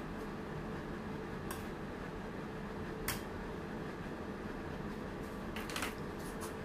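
A metal palette knife clicking and scraping a few times against the frosted cake board and metal turntable while excess buttercream is trimmed off: single clicks about a second and a half in and about three seconds in, then a short cluster near the end. A steady fan-like hum runs underneath.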